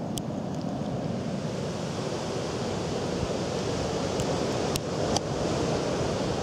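Steady outdoor rushing noise with a few sharp clicks: one near the start and two close together about five seconds in.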